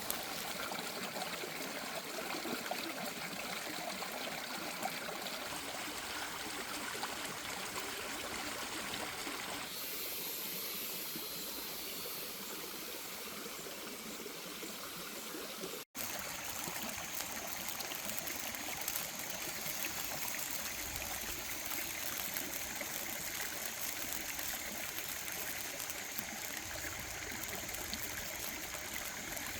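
Steady running water, trickling, with a sudden brief break about halfway through.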